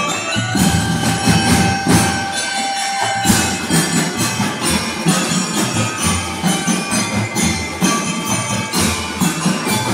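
Drum and lyre corps playing: bass and snare drums beating a steady marching rhythm, with bell lyres ringing out the tune over the top.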